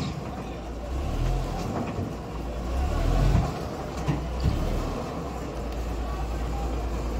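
Crawler bulldozer's diesel engine running under load as the machine drives up onto a lowbed trailer, its rumble swelling twice, with a couple of knocks from the tracks and trailer about four seconds in. The engine settles to a steadier low hum near the end.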